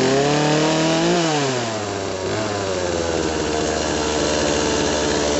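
Stihl MS180 two-stroke chainsaw engine running cold just after starting: the revs climb for about a second, then fall back and settle into a steady idle while it warms up.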